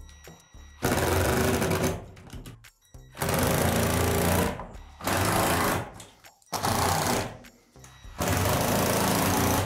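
Ridgid cordless impact driver running screws into the shed's roof cap and truss. It fires five times, each run lasting about a second, with short pauses between screws.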